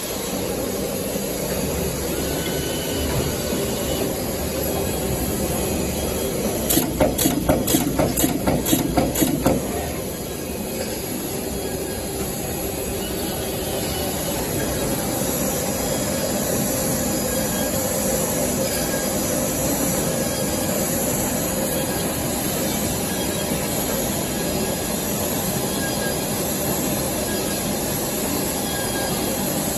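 PCB depaneling machine and its conveyors running with a steady mechanical hum and hiss. About seven seconds in, a run of about ten sharp clicks, about three a second, lasts around three seconds.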